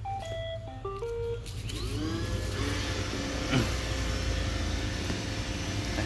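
iRobot Roomba 960 robot vacuum playing its short electronic tune of stepped beeps as its button is pressed, then its motors whirring up with a rising whine and running steadily.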